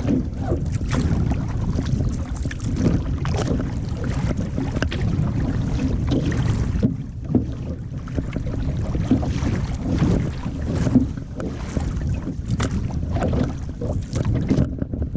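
Strong wind buffeting the microphone over the irregular splash and slap of waves and paddle strokes against a kevlar canoe.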